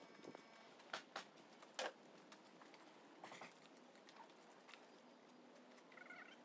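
Near silence, broken by a few faint, scattered clicks and taps, the clearest about a second and two seconds in, and a faint short chirp near the end.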